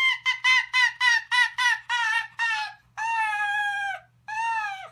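Arctic fox 'giggling': a rapid run of high yipping calls, about four a second, then two longer drawn-out calls, the second dropping in pitch as it ends. It is the call this fox typically makes when sleepy.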